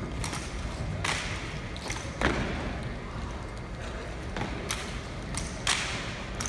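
Armed drill platoon working its drill rifles: a series of sharp slaps and thuds from hands and rifle stocks, about eight at uneven intervals, the loudest about two seconds in and again near the end, over a low steady background rumble.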